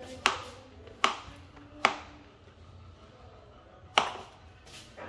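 Kitchen knife chopping through papaya onto a plastic cutting board: four sharp knocks, three in quick succession under a second apart, then a pause and a fourth about four seconds in.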